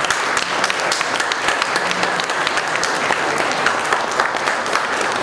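A roomful of people applauding: many hands clapping steadily together.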